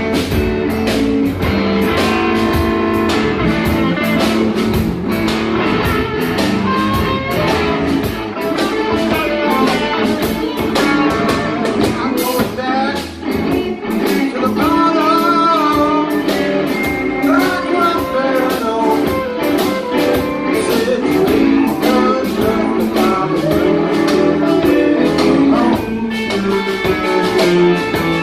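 Live blues band playing: electric guitar over bass and drums, with a steady beat and bending lead lines.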